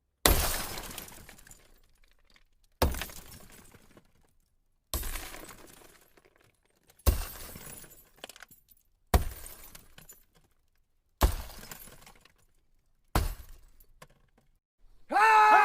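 Seven separate sharp crashes about two seconds apart, each a sudden hit trailing off over a second or so, like something breaking.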